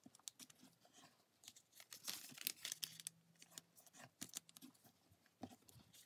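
Faint, scattered rustles and crinkles of origami paper being folded in half by hand and its crease pressed flat, busiest in the middle.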